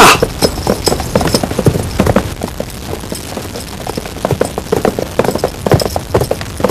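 Hoofbeats of a galloping horse, a quick irregular run of clops that gets louder near the end, with a man's shout at the very start.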